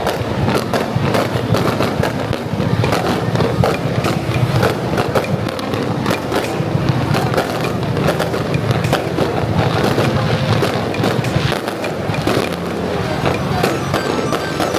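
Fireworks and firecrackers going off in a dense, continuous stream of rapid crackling pops.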